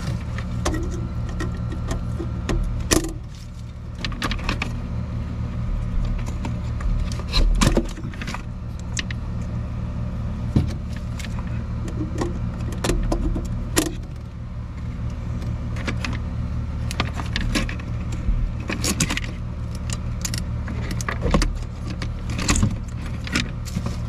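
Pliers and wires clicking and clinking as hands work in a heat pump's control compartment: irregular sharp metallic ticks and light rattles, over a steady low machine hum.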